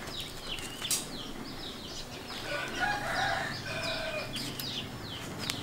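A rooster crows once about midway through, over constant high, quick falling chirps from small birds.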